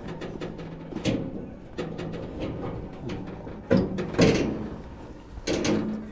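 A run of knocks, clatters and rattles from handling hard parts, with louder knocks about a second in, near four seconds and at five and a half seconds, over a faint steady low hum.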